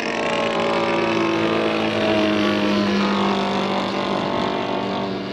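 Engine of a radio-controlled scale model Heston Phoenix monoplane droning steadily in flight, its pitch shifting slightly as the model flies by.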